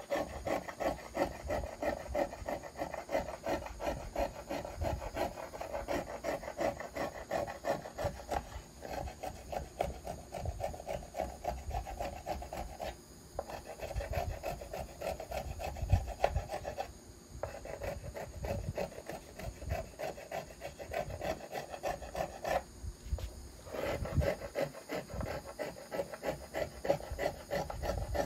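Small violin maker's finger plane taking quick, short strokes over the arch of a violin plate, cutting fine shavings to smooth out the high spots. It runs as a steady scratchy rasping, with short pauses near the middle and about three-quarters of the way through.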